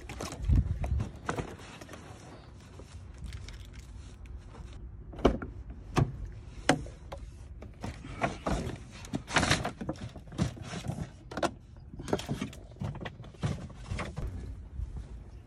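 Shopping bags being loaded into a car through its open door: paper bags rustling, with scattered knocks and thumps of handling.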